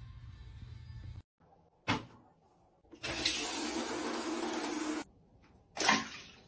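Running water, a steady rushing for about two seconds in the middle, with a short sharp sound before it and another after it.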